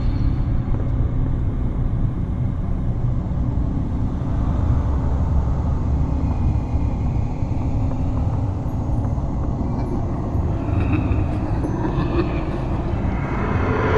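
Steady deep rumbling drone of a horror ambience track, with a swell of higher hissing noise building near the end.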